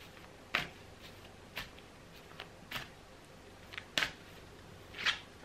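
Oracle cards being shuffled overhand by hand: short soft taps of the cards at uneven intervals.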